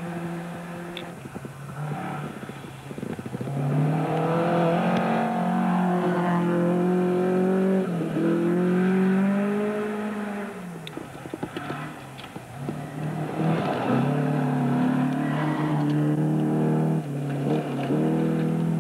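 Rally car engines revving hard on a gravel special stage, with several cars passing one after another. The pitch climbs and then drops at each gear change or lift as the cars take the corner.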